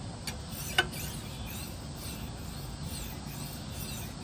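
Hand file draw-filing a forged steel knife blade: faint, repeated scraping strokes back and forth, with one sharp click about a second in.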